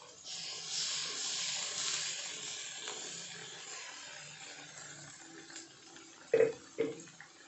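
Blended chili spice paste sizzling in hot oil in an aluminium wok. The hiss swells soon after the start and slowly dies down, and near the end there are two sharp clanks of the metal spatula against the wok.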